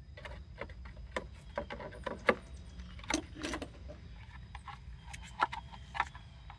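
Hard plastic parts of a 2010 Honda Odyssey fuel pump module clicking, knocking and rattling as they are handled and fitted together by hand, with a few louder knocks.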